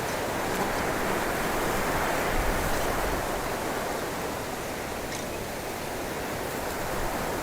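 Wind blowing through a cypress bush: a steady rushing that swells about two to three seconds in and then eases, with some low wind rumble on the microphone. A few faint, short bird chirps sit above it.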